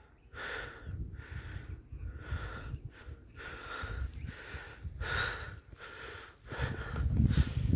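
A person breathing hard in a run of rasping breaths, roughly one or two a second, over a low rumble on the microphone.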